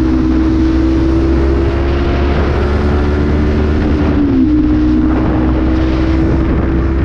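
Honda CB500F parallel-twin engine with an aftermarket exhaust tip and no air filter, running steadily at road speed, with wind rumble on the microphone. The engine note dips briefly in pitch about four seconds in.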